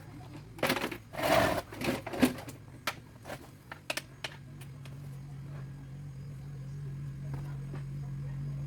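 Oranges knocking and clattering as they are handled, then a steady low motor hum sets in about four seconds in and slowly grows louder, typical of an orange sorting machine running.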